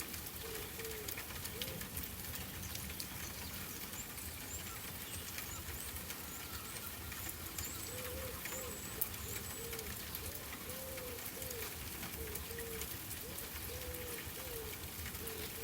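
Doves cooing in repeated soft arched phrases, joined a few seconds in by a small bird's high chirps, over a steady background hiss with fine ticking.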